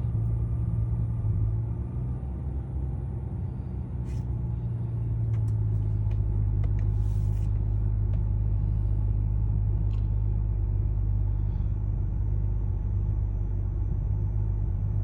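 BMW N55 turbocharged straight-six idling on a cold start, uneven for the first few seconds and then steadier. The rough cold idle is the sign of a fault that a mechanic put down to a failing high-pressure fuel pump.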